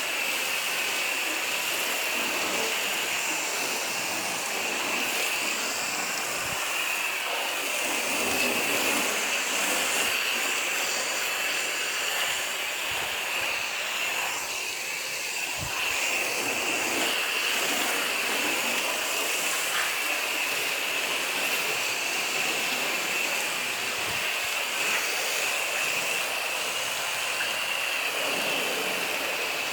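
Torq Foam Blaster 6 foam gun on a garden hose spraying soapy foam onto a car, a steady hiss.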